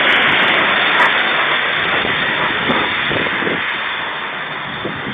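High-pressure jet-wash lance spraying shampoo onto a car, a steady loud hiss of water.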